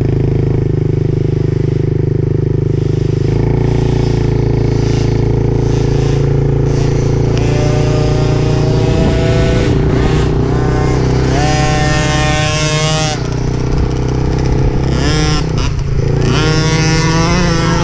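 Dirt bike engine running under throttle as it is ridden along a trail, its pitch stepping and rising and falling with throttle and gear changes.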